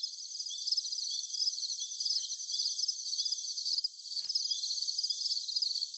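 Crickets chirping in a steady chorus of high, rapid trills, with a lower chirp repeating about one and a half times a second.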